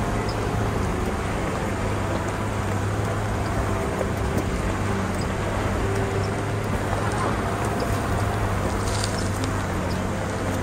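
Nissan Patrol Y60 off-roader driving with its engine running steadily. It gives a low, even drone whose pitch holds constant throughout.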